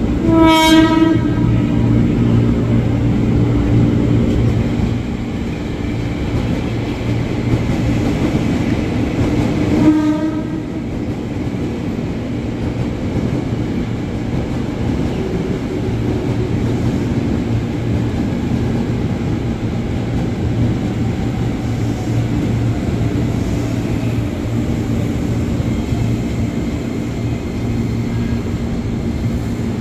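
Ex-JR 205 series KRL electric commuter train sounding its horn as it arrives: a blast of about a second at the start and a shorter one about ten seconds in. Between and after them, a steady mechanical hum as the train comes in and stands at the platform.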